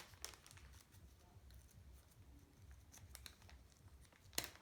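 Near silence with a few faint clicks and one sharper click near the end, as small metal parts are handled.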